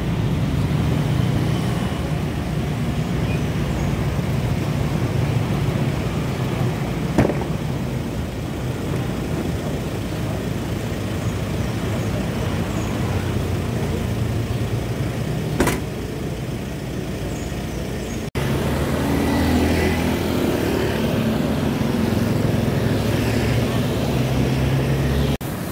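Vehicle engines running in street traffic, a steady hum, with two sharp knocks about seven and sixteen seconds in. Past a cut after about eighteen seconds, motorcycles and cars pass by.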